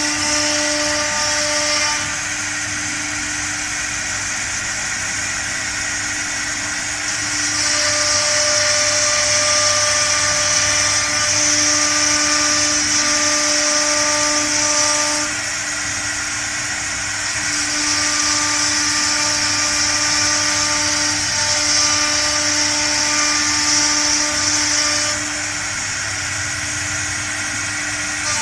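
Spindle of a three-spindle CNC wood router running with a steady whine as its bit cuts a clamped sheet of board. The sound swells louder for two long stretches of several seconds and eases off between them.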